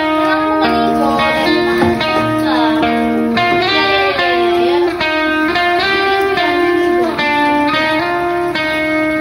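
Background music: a plucked guitar melody, with some notes sliding in pitch.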